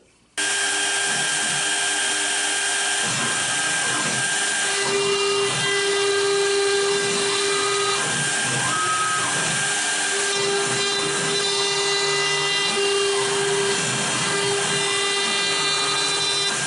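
CNC router spindle running steadily with a whine, engraving an oak board; it starts abruptly about half a second in.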